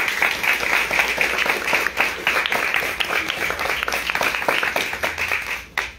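Audience applauding: many hands clapping at once, stopping fairly abruptly near the end.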